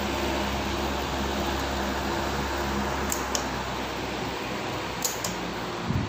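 Crompton wall fan running steadily after a full service, a smooth rush of air from the blades over a low motor hum. A few faint high ticks midway and near the end.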